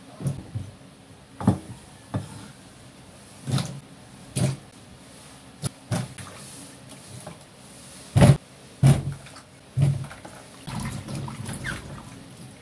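Irregular knocks and clatters of a cleaver on a thick wooden chopping board, with slices of green papaya dropped into a plastic bowl of water. Near the end, hands swish and rub the papaya slices in the water.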